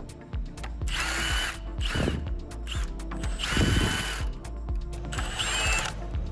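Electric power tool, a drill/driver, running in three short bursts, each under a second long, with a whine in each, as bolts are spun out of a BMW N55 engine during its teardown.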